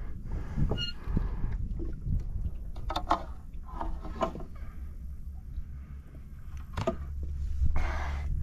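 A hooked bass splashing at the water's surface right beside a paddleboard as it is landed, several sharp splashes and knocks over a steady low rumble of wind on the microphone.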